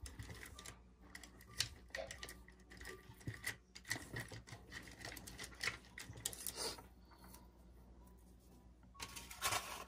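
Faint, scattered taps, clicks and rustles of paintbrushes and a paper towel being handled on a desk, with a slightly louder cluster of rustling near the end.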